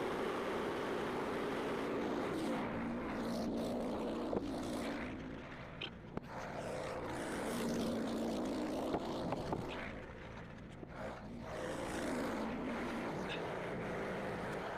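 Gasoline engine of a portable bandsaw mill running steadily. Its level drops twice, around the middle and again about two-thirds in, with a few light clicks.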